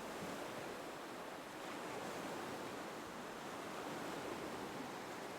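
Gentle ocean waves as a soft, steady wash of surf that swells and eases slowly.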